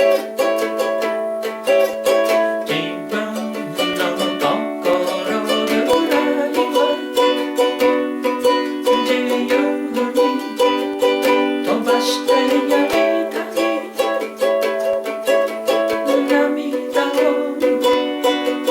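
Ukulele strummed in a steady rhythm, playing chords.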